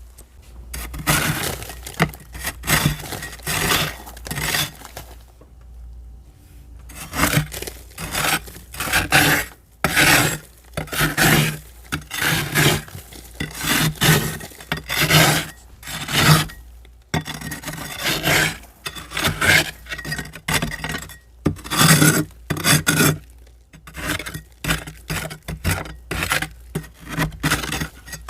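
Thick, fluffy frost being scraped off the inside walls of a deep freezer. It comes as a run of rough, rasping strokes, several a second, with a few short pauses.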